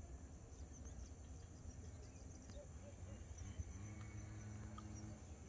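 Faint outdoor ambience: a steady high chirring of insects with a few small bird chirps over it. A low steady hum comes in about halfway.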